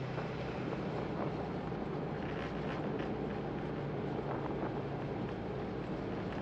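Jet airliner's engines and airflow heard from inside the cockpit during the landing rollout, with thrust reversers deployed: a steady rushing noise over a low drone.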